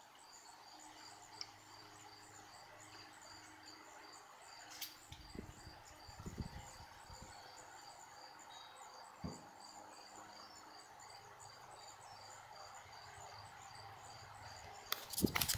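Faint insect chirping, a cricket, repeating evenly and steadily, with a few soft low bumps from about five to nine seconds in.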